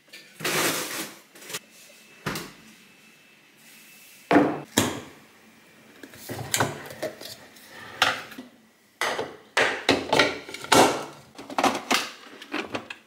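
Plastic containers being handled on a counter: a series of knocks, clatters and scrapes as a Ninja Creami pint is lidded and its outer bowl is twisted into the machine.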